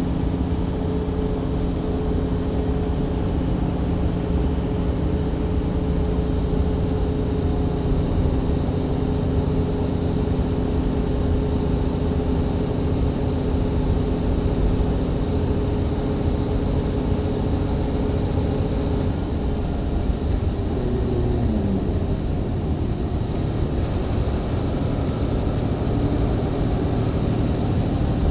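Mercedes-Benz Citaro C2 LE hybrid bus's diesel engine, heard from inside, pulling steadily through its Voith automatic gearbox over road rumble. About 21 seconds in, the engine note falls as the revs drop.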